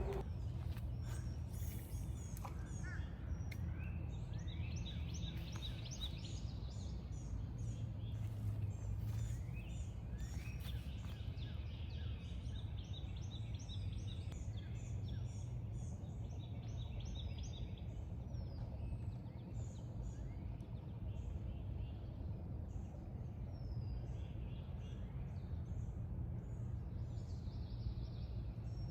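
Birds chirping and calling again and again throughout, over a steady low rumble, with a few faint clicks in the first few seconds.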